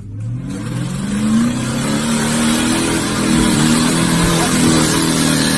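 Off-road vehicle's engine revving up over the first second or so, then held at high revs under heavy throttle, with a loud rushing noise alongside.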